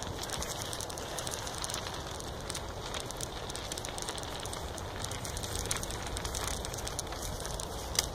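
Footsteps on dry leaves and dirt along a woodland trail, heard as a steady crackly rustle with the handled phone's own rubbing noise, and one sharp click near the end.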